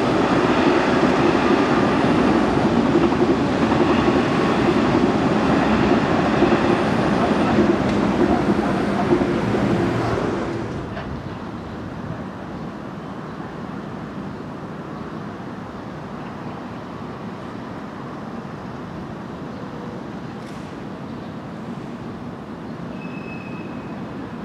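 Ten-car Korail Line 4 electric commuter train passing close by, a loud steady rumble of wheels on rails. About ten seconds in it cuts off abruptly to a much quieter, steady outdoor background.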